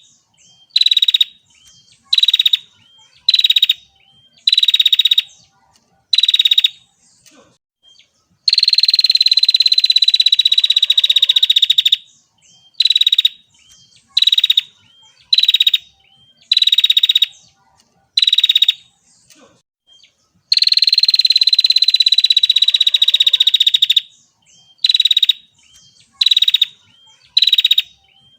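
Female prinia (prenjak) calling with rapid, buzzy trills, mostly short bursts of half a second to a second in quick succession, with two longer trills of about three and a half seconds each.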